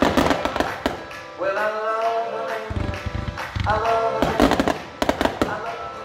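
Music with a singing voice plays alongside firework bursts. Aerial shells and comets bang and crackle, with several loud reports near the start and another quick cluster about five seconds in.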